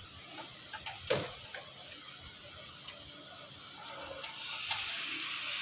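Scattered light clicks and knocks of parts and hand tools as a car's front end is reassembled, with one sharper knock about a second in. A steady hiss comes up in the background about four seconds in.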